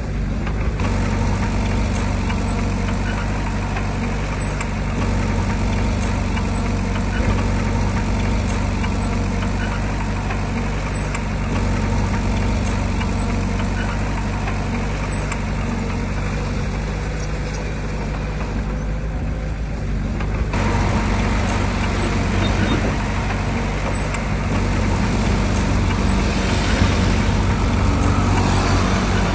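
Heavy earthmoving machinery's diesel engine running steadily, with a low, even drone. About twenty seconds in it gets louder and harsher, as the machine works harder.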